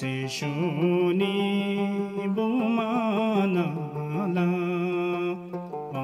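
A man singing a slow, sad Bhutanese song in Sharchop dialect, holding long notes that waver and bend in ornamented phrases, with musical accompaniment.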